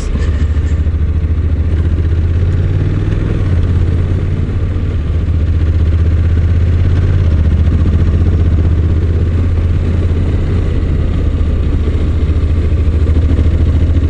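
Honda NC750X's parallel-twin engine running under way on a climbing mountain road, heard from the rider's position. The engine note is steady, with two shifts in pitch about three and seven seconds in.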